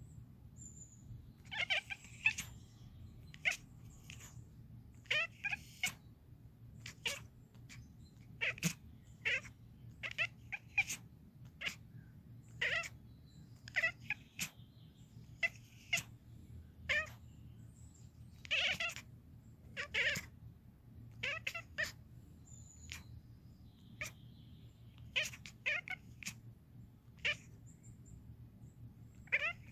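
Scottish Fold cat chattering: short chirping, twittering calls, about one a second in irregular runs. This is the excited hunting chatter a cat makes when watching birds.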